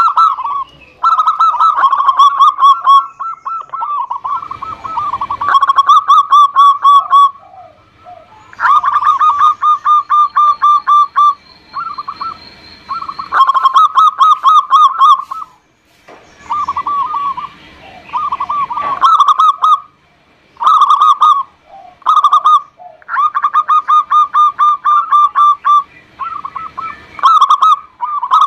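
Zebra dove (perkutut) singing: loud phrases of rapid, evenly repeated trilling coos, each phrase one to three seconds long, repeated over and over with short pauses between.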